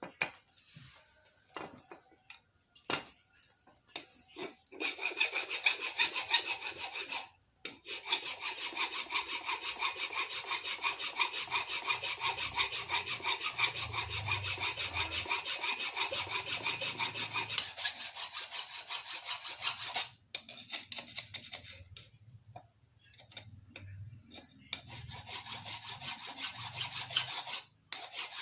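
Fast back-and-forth rubbing strokes of hand abrading work on a rifle-stock part, in two long spells: from about five seconds in to about twenty, with a short break near the seventh second, and again near the end.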